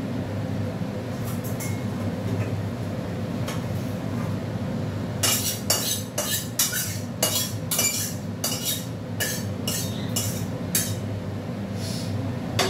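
Metal spoon clinking and scraping against a steel karahi as fish curry is scooped and tipped out into a steel bowl, a quick run of sharp clinks from about five to eleven seconds in. A steady low hum runs underneath.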